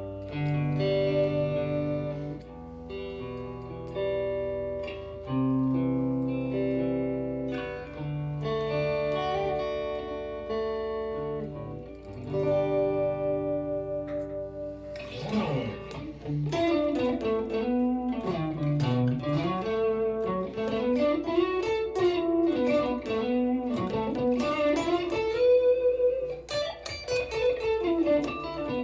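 Electric guitar played through amp-simulation software on a clean setting with a little reverb and compression: held chords for the first half, then quick single-note runs rising and falling from about halfway through.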